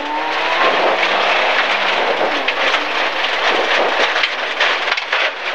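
MG ZR rally car's 1.4-litre engine revving up in the first second, then buried under a loud steady hiss and crackle of wet gravel thrown by the tyres against the underbody, heard from inside the car.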